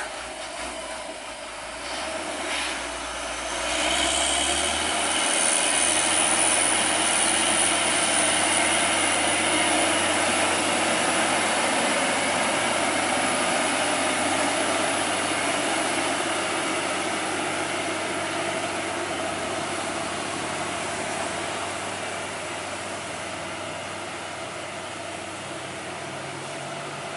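Hino tractor truck hauling a tank container passing close by, its diesel engine running steadily with a high whine while it is nearest, then slowly fading as it pulls away.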